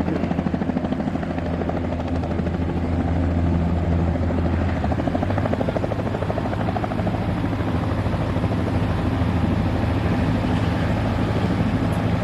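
Cessna 310's Continental flat-six piston engine running with its propeller turning, a steady rapid beat that picks up slightly in speed about five seconds in. It is the engine's first run after sitting unrun for four years.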